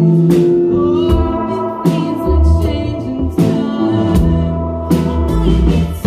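Live indie rock band playing: drum kit with cymbal and snare strikes over electric bass and guitar.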